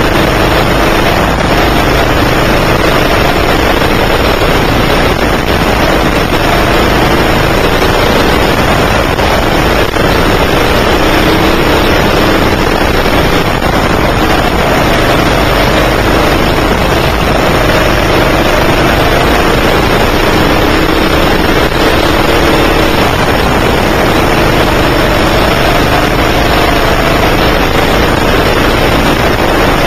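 9 hp racing kart engine running hard, heard from on board, its pitch rising and falling as it accelerates down the straights and slows into the corners, over a steady noisy hiss.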